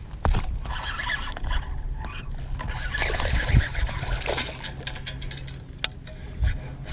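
Baitcasting reel being cranked with clicks and rattles as a hooked small bass splashes at the surface, then is lifted from the water, with a sharp click and a thump near the end.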